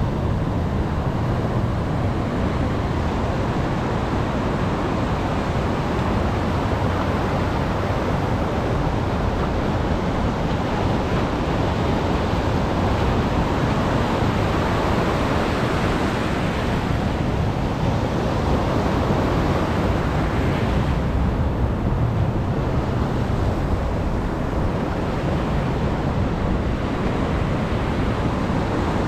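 Heavy surf of a rough sea washing and breaking continuously on the shore, with wind rumbling on the microphone; the wash swells up in a couple of surges midway.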